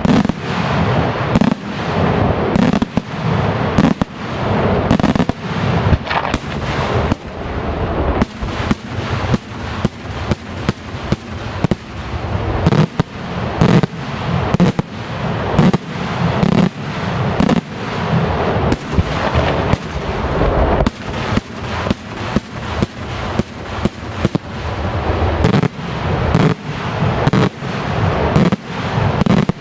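Daytime fireworks: a continuous barrage of aerial shells bursting, loud bangs coming more than once a second over a rolling, crackling rumble.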